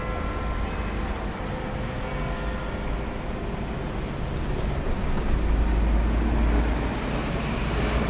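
Steady road traffic, with a heavier vehicle's low rumble swelling about five seconds in and easing off before the end. Over the first few seconds the ringing of Big Ben's bells from the twelve o'clock chime lingers above the traffic and fades away.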